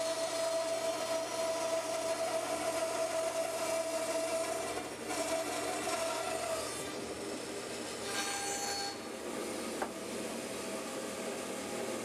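Bandsaw blade cutting lengthwise through a small log held in a sliding milling sled: steady sawing noise with a steady whine over it. The whine fades out about seven seconds in while the sawing goes on.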